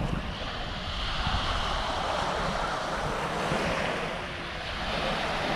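Waves washing onto the beach, the hiss of the surf swelling and easing, with wind rumbling on the microphone.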